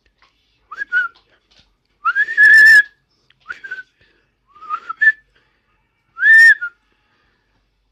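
A person whistling a run of five short whistles. Each slides up in pitch and then holds. The second and the last are the longest and loudest.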